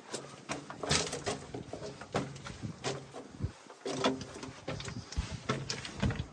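Footsteps crunching and scuffing on loose stone rubble in a narrow rock-cut tunnel: a run of irregular crunches and scrapes with no steady rhythm.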